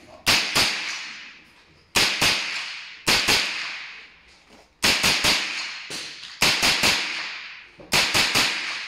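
A semi-automatic rifle fired in quick strings of two to four shots, about seventeen sharp cracks in all, each with a short echo under the range roof. The empty casings are thrown into a mesh brass catcher clipped to the rifle.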